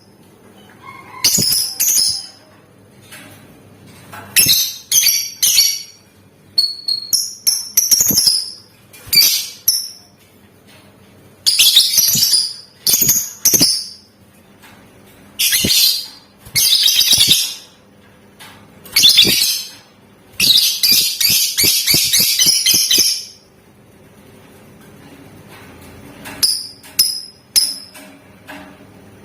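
Lovebird calling in short, shrill, high-pitched bursts every second or two, with one longer rapid trill of about two and a half seconds, the chattering 'ngekek' song, about two-thirds of the way through.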